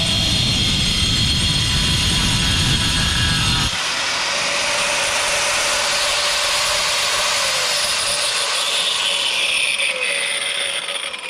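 Bosch PWS 700-115 115 mm angle grinder cutting through a pipe with a multi-purpose disc, a loud steady grinding. A heavy low rumble drops out suddenly about four seconds in, and the sound fades near the end as the cut finishes.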